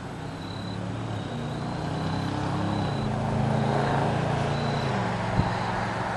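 A lawnmower engine running, with a low steady hum that shifts a little in pitch and swells to its loudest about four seconds in before easing off, over wind noise.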